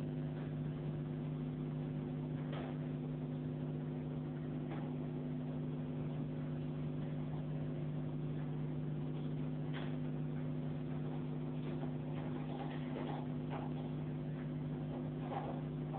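Steady electrical hum with a faint hiss, carrying a few faint clicks and taps that come more often in the last few seconds.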